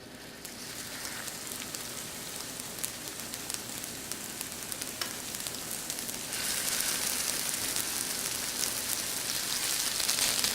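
Cornstarch-coated chicken wings shallow-frying in hot oil in an electric wok: a steady sizzle with scattered small crackles, louder from about six seconds in.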